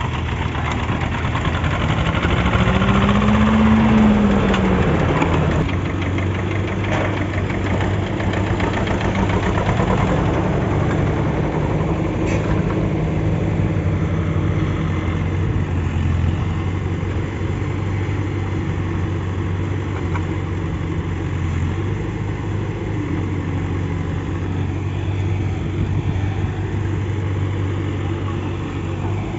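Diesel engine of heavy earth-moving machinery running steadily, revving up and back down once a few seconds in.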